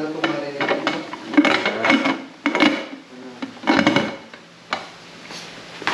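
Metal cookware and utensils clinking and scraping in irregular knocks, some with a short metallic ring.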